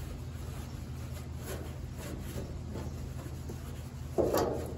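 A rag wiping the bare steel underside of a car hood, faint scratchy rubbing over a steady low hum. About four seconds in there is a short, louder, sudden noise.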